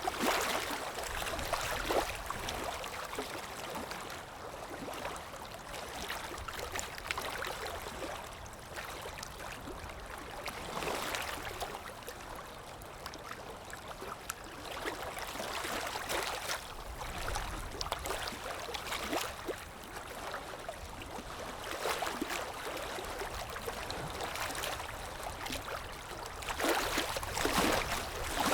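Running water, a steady rushing and gurgling that swells and eases every few seconds.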